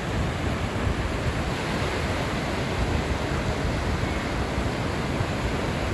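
Pacific Ocean surf breaking and washing onto the beach, a steady rushing roar, with some wind on the microphone.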